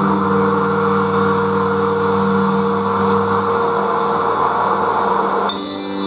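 Electronic ballet score: several sustained droning tones under a dense, hissing noise layer. The texture changes abruptly near the end.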